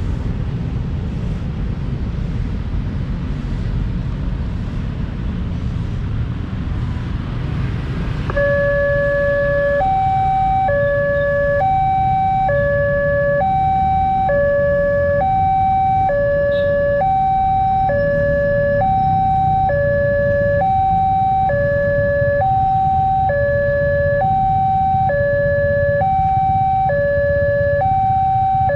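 Electronic railway level-crossing warning alarm starting about a third of the way in, alternating a lower and a higher note, each held a little under a second, repeating steadily: the signal that a train is approaching and the barrier is coming down. Under it, and alone before it, is the low rumble of road traffic.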